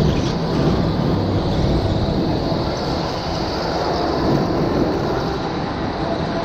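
Indoor rental go-kart being driven around the track, a steady mechanical rumble of the kart's motor and tyres heard from a helmet-mounted camera.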